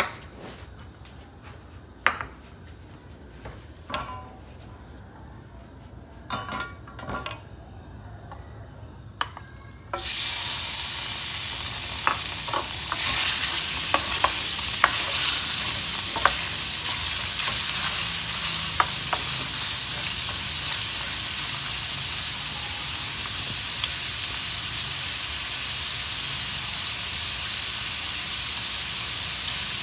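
A few scattered clinks and knocks, then about a third of the way in food frying in hot oil starts with a sudden loud, steady sizzle. Utensil clicks against the pan come over it for several seconds as the food is stirred.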